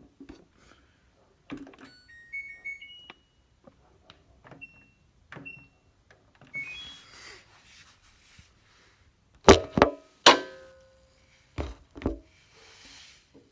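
Washing machine control panel beeping as its buttons are pressed, with short multi-tone jingles and clicks, then a few loud thumps near the end, before any spinning is heard.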